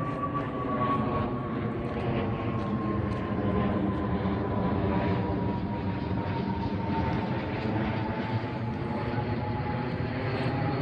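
Propeller airplane flying over, its engine drone falling slowly in pitch as it passes.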